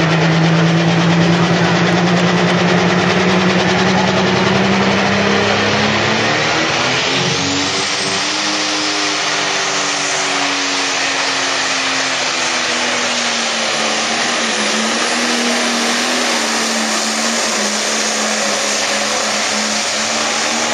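Pro stock pulling tractor's turbocharged diesel engine running flat out under heavy load while pulling the sled. Its pitch climbs about seven seconds in, then slowly sags as the load builds, with a thin high whine rising over the engine noise.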